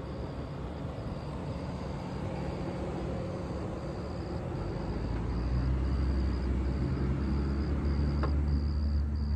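Engine of a 2020 Toyota Prius, a 1.8-litre four-cylinder, running with a low, steady rumble and hum that grows louder about five seconds in.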